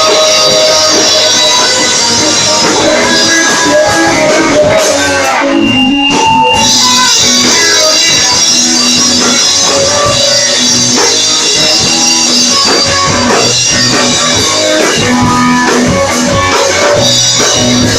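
Live rock band playing, with guitars and a drum kit. The band briefly breaks about five and a half seconds in, then comes back in at full volume.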